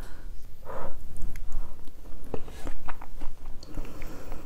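A person eating a spoonful of kimchi-octopus porridge close to the microphone: a short noisy scoop-and-sip a little under a second in, then chewing with many small wet mouth clicks.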